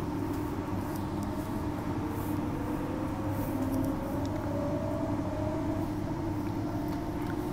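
Walkers Limited electric multiple unit train heard from inside the carriage while running at speed: a steady rumble of wheels on rail, with a whine that rises slowly in pitch through the middle.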